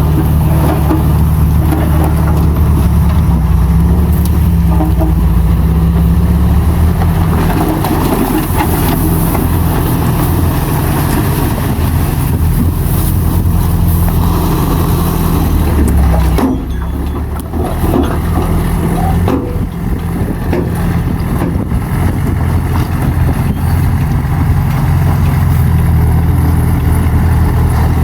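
Heavy diesel engine of earthmoving equipment (bulldozer or dump truck) running steadily, with a brief dip in level about sixteen seconds in before it picks up again.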